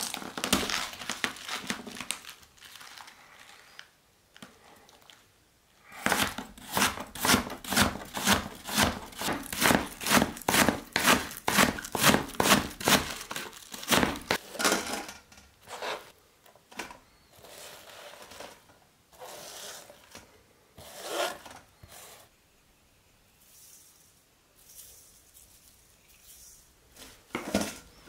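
A kitchen knife chops napa cabbage on a plastic cutting board in a steady run of crisp chops, about three a second, which is the loudest part. Before and after the run, quieter, sparser rustling and crunching come from the leaves being handled. Near the end the chopped cabbage rustles in a stainless mesh strainer.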